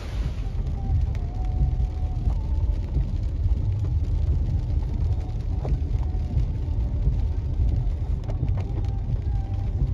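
Steady low road and engine rumble inside a vehicle's cabin as it drives on a wet road, with scattered light ticks of rain on the windshield.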